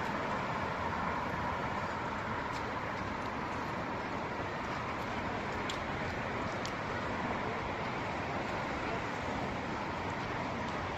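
Steady city traffic noise carried over the river, an even rumble and hiss with no breaks, with a few faint clicks in the middle.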